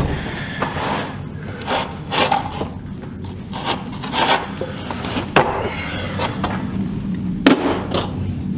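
Rubber-tyred steel return rollers for a Nashorn tank destroyer being handled and shifted on a wooden workbench: irregular knocks, scrapes and rubbing, with a few sharper knocks.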